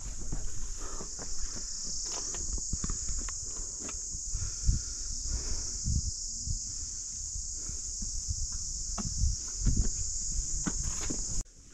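Steady, high-pitched chirring of an insect chorus, with irregular low thumps underneath. The chirring cuts off suddenly near the end.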